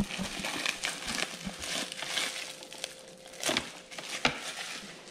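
Clear plastic bag crinkling as a speaker's wiring loom is unwrapped and pulled out of it, with louder rustles about three and a half and four and a quarter seconds in.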